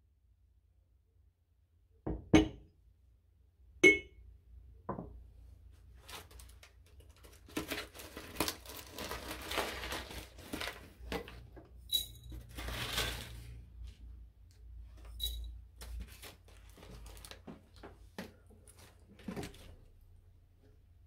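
Two sharp clinks of glazed ceramic, then a long stretch of crinkling and rustling as loose-leaf tea is tipped into a ceramic teapot, with a few light clinks against the pot.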